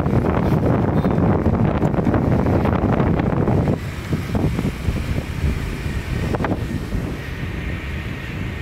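Wind buffeting the microphone of a moving motorbike, over engine and road noise. The noise drops to a lower level about four seconds in.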